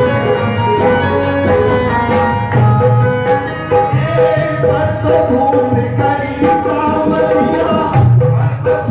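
Amplified Hindu devotional bhajan performed live: a man sings into a microphone over steadily beaten hand drums and jingling percussion, with sustained melody notes underneath.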